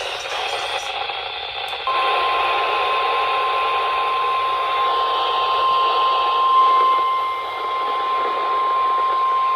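Hiss from a weather radio receiver, then about two seconds in the NOAA Weather Radio 1050 Hz warning alarm tone starts and holds as one steady tone: the weekly test of the station's public warning alarm.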